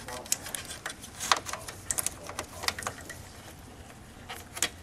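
Irregular sharp clicks and taps, about eight, as new retaining clips are pressed and popped into place under a lip.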